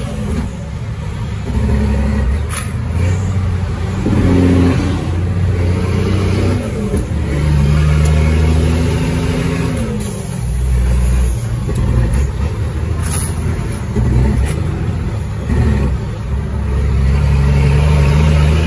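Caterpillar 3306 inline-six diesel in a 1999 Ford Sterling truck, running under load. Its revs climb and then drop back about four, ten and fifteen seconds in.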